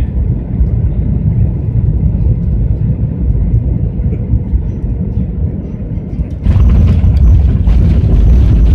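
Steady low rumble of a Boeing 737-900 heard from the cabin, then about six and a half seconds in a sudden jump to a much louder, fuller rush that holds: the airliner touching down and its engines going into reverse thrust on the landing roll.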